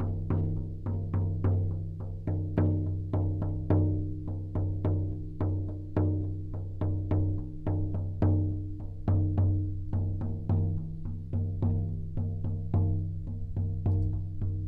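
Large 50 cm deer-hide frame drum (shaman drum) beaten in a steady rhythm of about three strokes a second, some strokes accented, each leaving a deep resonant boom that rings on between strokes.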